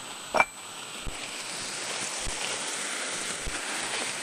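Vegetables and chopped tomato sizzling as they fry in a pan, a steady hiss that grows slightly louder, with one sharp clack about half a second in.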